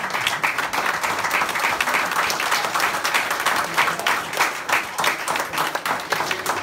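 A roomful of people applauding, dense clapping that thins into fewer, separate claps near the end.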